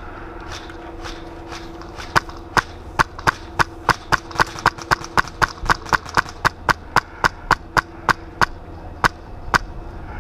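Airsoft rifle fired in quick semi-automatic shots, about two dozen sharp cracks at roughly three to four a second, starting about two seconds in and ending near the end.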